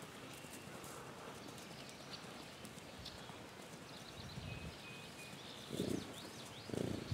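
Young bison running over grass pasture, its hoofbeats faint at first, then two louder thuds near the end as it comes closer. Birds chirp in the background.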